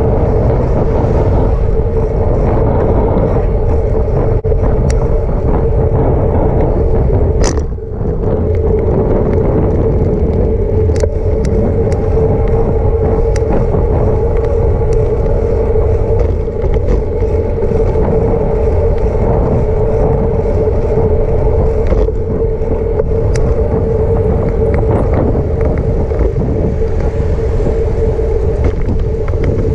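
Wind and road noise on a camera riding on a moving bicycle, with a steady hum running throughout. The noise dips briefly about eight seconds in.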